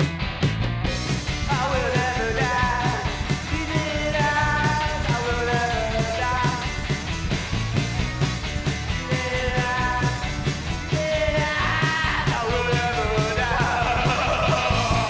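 Garage rock band playing live: distorted electric guitar, electric bass and a drum kit, with a sung lead vocal coming in about a second and a half in. Near the end the band holds a final ringing chord.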